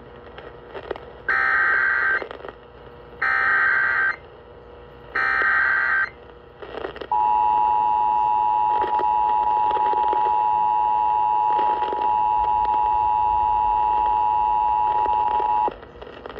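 Emergency Alert System activation as broadcast on AM radio: three one-second bursts of digital data tones (the SAME header that encodes the alert), then, after a short pause, the steady two-tone attention signal held for about eight and a half seconds. The sequence marks the start of an emergency alert, here a severe thunderstorm warning.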